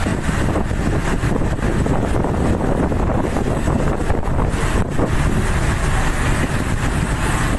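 Wind buffeting the microphone over the steady rush of big sea waves: a loud, continuous low rumble.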